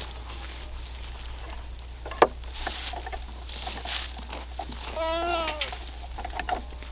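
A baby goat bleats once, a wavering, falling call about five seconds in, amid light rustling and small clicks, with one sharp click about two seconds in.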